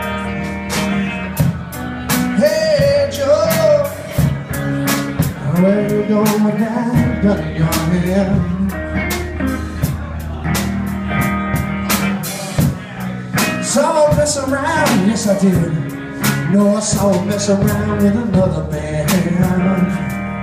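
Live blues-rock band playing: electric guitar, bass guitar and drum kit, with a lead line of bending, sliding notes over a steady bass and drum beat.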